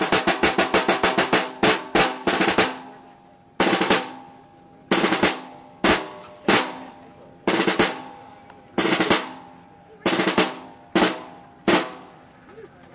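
Solo snare drum playing: fast rolls for the first couple of seconds, then short rolls and single accents about a second apart, each left to ring out.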